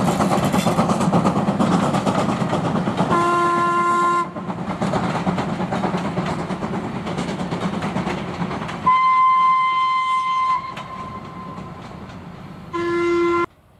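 Steam locomotive passing at speed with a passenger train: a dense rumble of exhaust and wheels on the rails. Its steam whistle sounds three times: a lower, several-note blast about three seconds in, a higher, longer blast a little before halfway, and the lower blast again near the end. The train sound fades as it draws away, and the sound cuts off abruptly just before the end.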